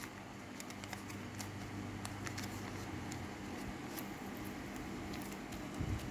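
Scattered small clicks and crinkles of a glossy plastic card packet being handled as a Pokémon card is slid out of it.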